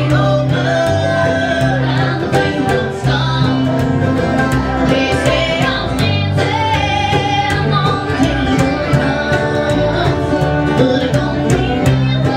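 Live bluegrass band playing with a steady beat: acoustic guitar, upright bass and banjo, with a woman singing lead.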